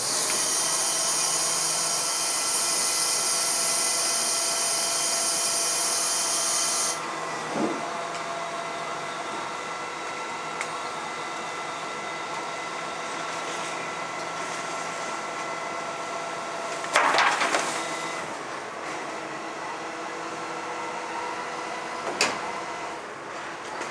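Rear-loader garbage truck with an UrBin body working at the bins, its engine and hydraulics running with a steady hum. A loud hiss runs over it for about the first seven seconds and cuts off suddenly. There is a knock a little after that, a loud clattering bang of metal and bins around the seventeen-second mark, and another knock near the end.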